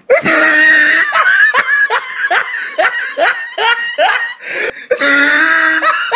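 Laughter: a fast run of short 'ha' bursts, about three a second, each rising in pitch, set between two longer held voiced sounds.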